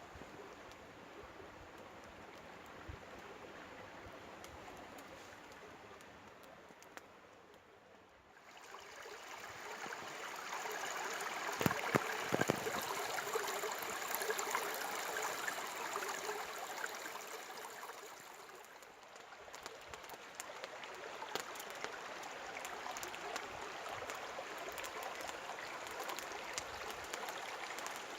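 A stream running and trickling, steady rushing water that grows louder about nine seconds in, with a couple of sharp knocks a few seconds later.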